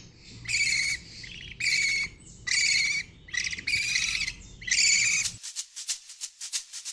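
Budgerigar chicks calling: five short, high calls about a second apart, ending a little after five seconds in.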